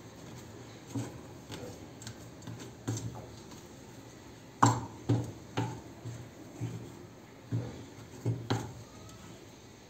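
A wooden spoon knocking and scraping against a non-stick frying pan while it stirs a stiff, thick dough of white glue and cornstarch. The knocks are irregular, the loudest about halfway through, and they come more often in the second half.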